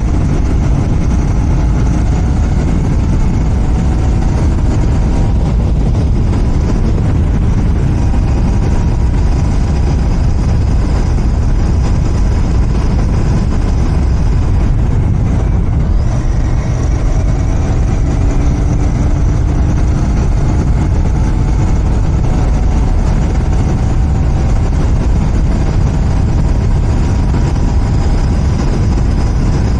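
Royal Enfield Continental GT 650's 648 cc parallel-twin engine running through its stock exhaust as the bike is ridden at a steady pace, a constant low rumble with only small, slow changes in pitch.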